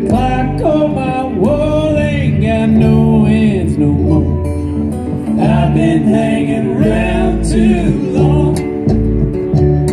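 A live acoustic band plays, with upright bass, drums and acoustic guitar. Over them a lead melody slides between notes, in two phrases separated by a short gap.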